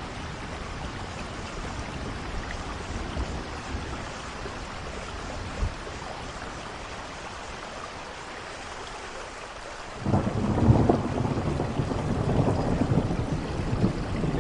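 Steady rain falling. About ten seconds in, a loud thunderclap breaks suddenly and keeps rumbling.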